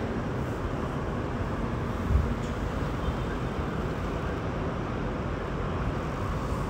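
Steady distant city traffic noise: an even rumble with no clear voice or tune over it.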